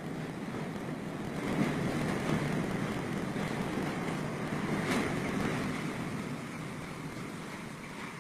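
Typhoon wind gusting hard, a rushing noise that swells about two seconds in and again about five seconds in, then eases off.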